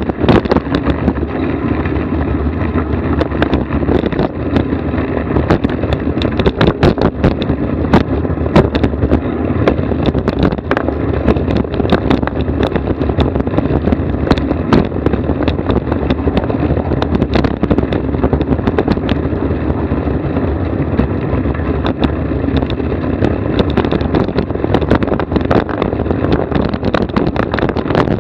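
Steady vehicle road noise picked up by a vehicle-mounted action camera: a loud, even rumble broken by many sharp knocks and rattles.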